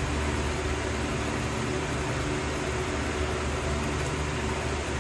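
Steady low mechanical hum with an even hiss, like a small fan or motor running.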